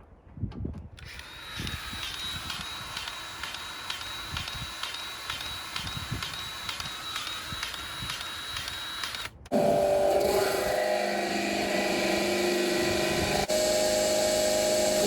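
A machine running: first a high whine that dips about twice a second, then, after a sudden jump in loudness about two-thirds of the way through, a louder steady drone with a constant whine.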